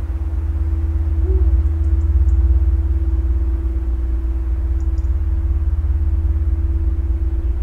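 Live experimental electronic drone music: a deep, steady low rumble with a single held tone above it, and faint high clicks twice.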